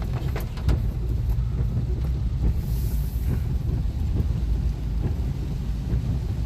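Steady low rumble inside a car during a heavy downpour, with a few faint taps in the first second or so.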